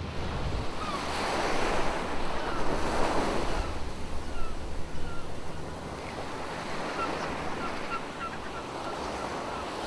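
Surf washing on a beach with wind on the microphone; the wash swells over the first few seconds. Near the end comes a run of short, faint chirps.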